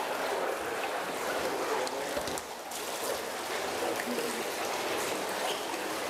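Water sloshing and trickling as a large kohaku koi is tipped out of a plastic bag into a shallow plastic tub of water. There is a steady wash of moving water throughout.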